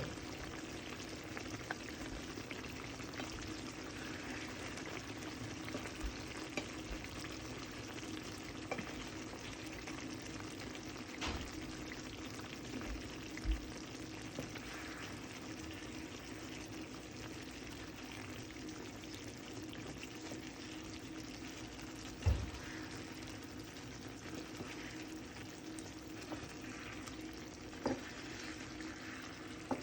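Marinated chicken pieces frying in hot oil in a pan, a steady sizzle, while the pieces are turned over, with a few short knocks scattered through.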